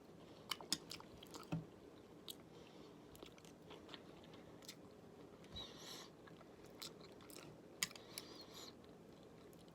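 Faint close-up mouth sounds of a person chewing sashimi: soft, wet smacks and clicks scattered irregularly, a few slightly louder ones about half a second in and again near eight seconds.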